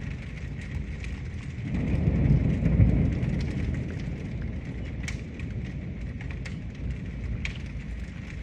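Steady rain with a low rumble underneath that swells about two seconds in and fades over the next couple of seconds, and scattered sharp ticks of drops striking a surface.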